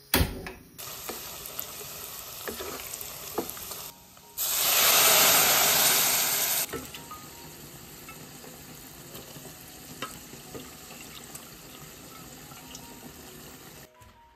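Hot pot soup base of chili oil and dried chilies sizzling as it is stir-fried in a pot with a wooden spatula. There is a sharp knock at the start, and the sizzling swells into a loud rush for about two seconds a little past four seconds in, then settles to a steady, quieter sizzle.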